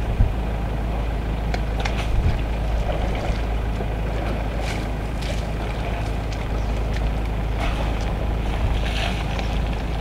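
A vehicle engine idling: a steady low rumble with a faint hum, and a few faint ticks.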